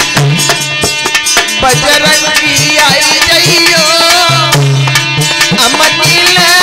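Live Hindi devotional folk song: a harmonium carrying the melody over a steady hand-drum rhythm, with a man singing.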